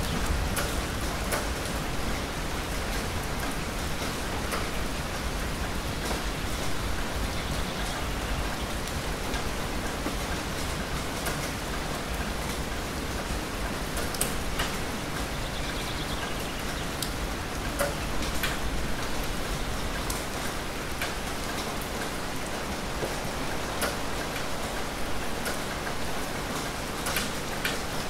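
Steady rain falling: an even hiss with scattered sharp drop ticks now and then.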